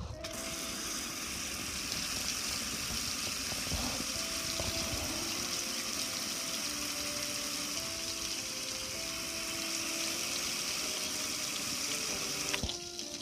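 Water spraying onto a soapy gas grill and splashing and streaming off it, rinsing away the suds. It is a steady hiss that starts suddenly and cuts off shortly before the end.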